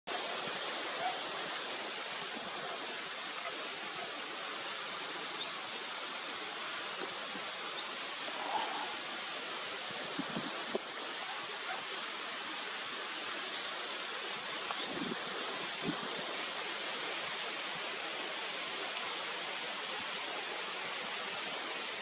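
Steady outdoor hiss, with about a dozen short, high chirps scattered through it, several rising in pitch, and a few soft low thumps.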